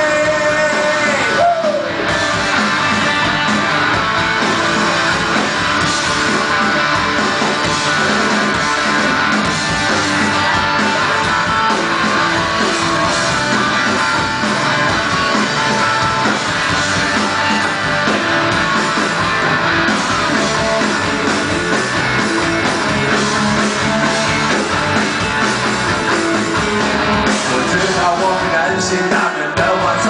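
Live band playing rock music with singing and guitar. A sung note is held at the start and ends about a second and a half in, then the full band plays on.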